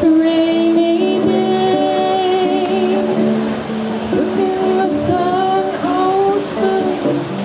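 Music: the instrumental intro of a slow song, with guitar and a sustained melody line whose held notes waver slightly.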